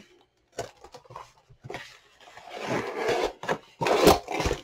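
Paper and cardboard packaging being handled: scattered clicks, a stretch of rubbing and scraping, then a few louder knocks near the end.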